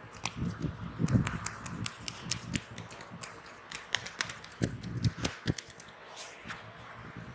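Hands working on a person's head in a head massage: an irregular run of sharp taps and clicks on the head and hair, with soft low thumps of patting about a second in and again around five seconds in.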